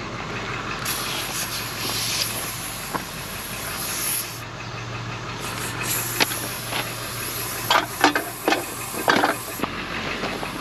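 Compressed air hissing at a car tire's valve as it is pumped up with a handheld inflator, in two long stretches, with a few metal clanks in the second half. A vehicle engine idles underneath.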